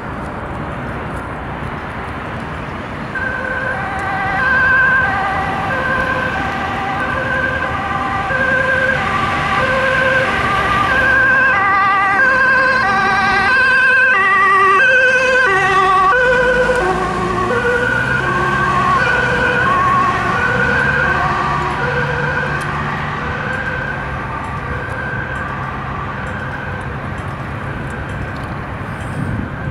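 Ambulance two-tone siren alternating high and low, each tone about half a second long. It grows louder as the ambulance approaches and passes about halfway through, where the pitch drops. It then carries on more faintly, with the vehicle's engine and tyres heard as it goes by and moves away.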